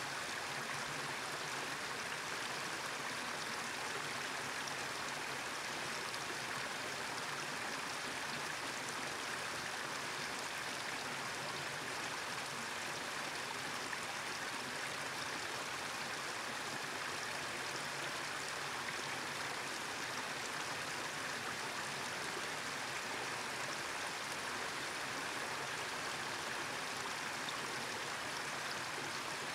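Small 12-foot tiered creek waterfall pouring over rock ledges into a pool: a steady, even rush of falling water.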